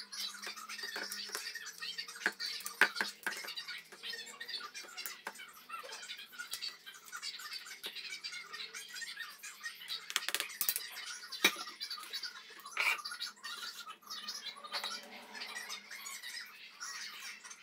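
A spatula scraping freshly ground coconut off a hand-blender chopper's blade and out of a plastic beaker: irregular scrapes and light taps, with a sharp knock about three seconds in and a few more knocks later.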